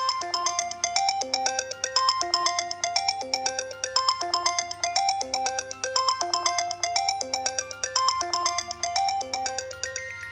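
Phone ringtone melody playing a short electronic phrase that repeats about every two seconds, over a steady low hum.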